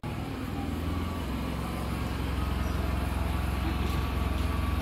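An engine running steadily, a low rumble with a faint steady hum over it.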